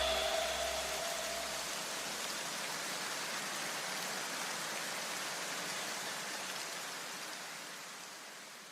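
The tail of electronic background music: a few lingering tones die away in the first second or two, then a steady hiss-like noise wash slowly fades out to silence near the end.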